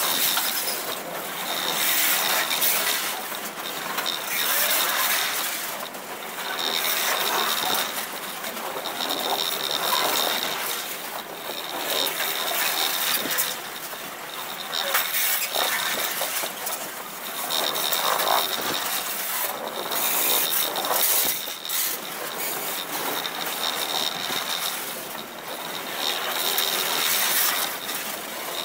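Loaded grain wagons of a long freight train rolling past close by on a curve: the wheels clatter on the rails, swelling and fading about every two seconds as the cars go by, with a high squeal that comes and goes.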